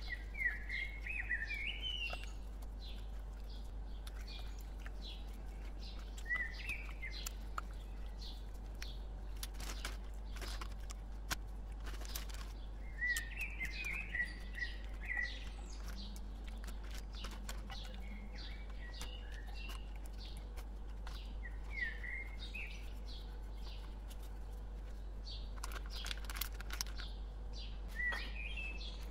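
Small birds chirping in quick groups of short rising chirps every few seconds, over a steady low hum, with scattered clicks and rustles.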